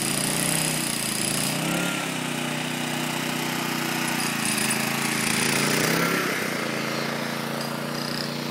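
Portable petrol generator running steadily, its engine note wavering briefly twice.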